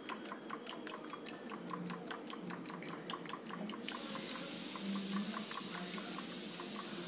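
Raw eggs being beaten with a fork in a ceramic bowl: the fork clicks against the bowl about four to five times a second. About four seconds in, a steady hiss starts and becomes louder than the clicking.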